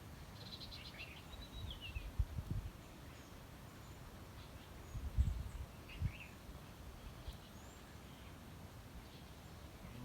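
Birds calling over outdoor background noise: a quick run of high chirps followed by a falling whistle near the start, and another short call about five seconds in. A few dull low thumps come in between.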